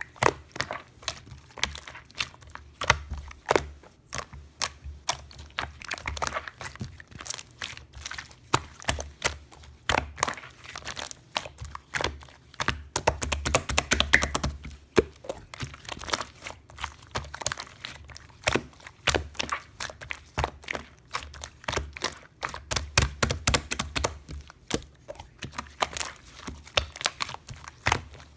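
Dense, irregular crackling and clicking, several sharp clicks a second in uneven clusters, over a faint low hum.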